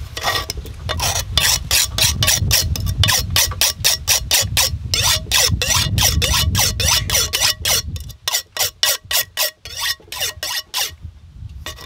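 A kitchen knife slicing cherry tomatoes and limes into a clay mortar, making quick sharp clicks about three or four times a second over a low rumble. About eight seconds in, the rumble stops and the cuts come more sparsely.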